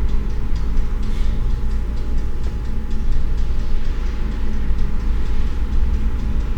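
Steady low rumble in an empty dressing room: a mix of sounds coming down from the stage and auditorium above and sounds filtering in from the parking garage. Faint, irregular ticks sound over it.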